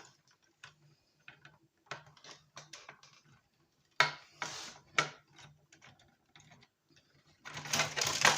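Irregular small clicks and ticks of a plastic electronics casing and a screwdriver being worked to undo a hidden screw, with louder scrapes and knocks about four and five seconds in and again near the end.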